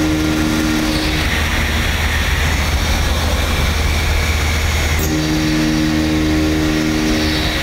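CNC machining center's spindle turning a carbide multi-form thread mill at about 4,800 rpm, cutting M12 threads into a cast iron tombstone: loud, continuous machining noise. A steady pitched hum drops out about a second in and returns about five seconds in.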